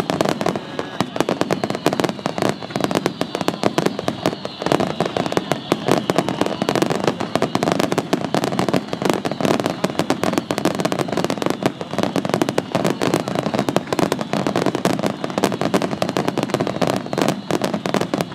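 Starmine fireworks barrage, hundreds of shells fired in rapid succession. It gives a continuous, dense roll of bangs and crackling bursts without a break. Faint high whistles fall slowly over the first few seconds.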